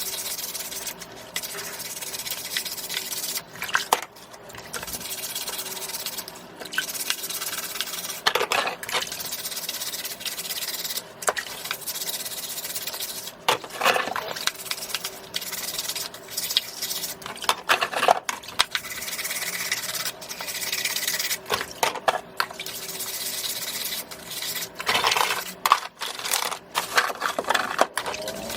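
Scallops being wiped by hand: a steady rubbing and scrubbing noise, broken by frequent sharp clicks and knocks.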